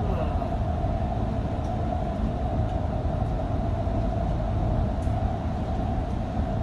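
Doha Metro train running along its track, heard from inside the front of the car: a steady rumble with a constant mid-pitched hum.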